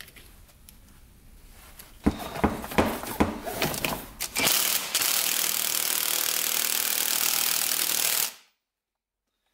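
Cordless impact wrench hammering down the flywheel nut on a 2005 Yamaha YFZ450 crankshaft. A few sharp knocks and clicks come about two seconds in, then a steady run of hammering for nearly four seconds that cuts off suddenly.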